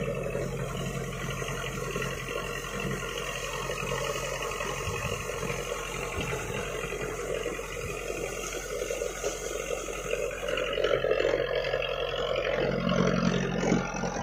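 Fishing boat's engine running steadily in forward gear, with water rushing and splashing along the hull.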